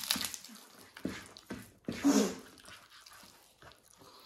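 People eating: scattered wet mouth clicks and chewing smacks, with one louder, breathy burst about two seconds in.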